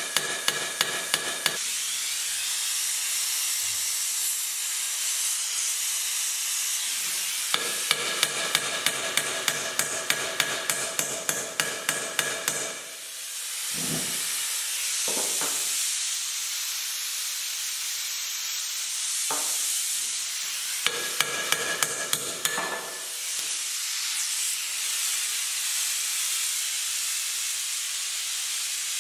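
A hammer tapping rapidly on a steel bolt seized by contact corrosion in an aluminium trailing arm, in three runs of about four ringing strikes a second. Under it runs a steady hiss from the gas torch heating the joint and the freeze spray chilling it.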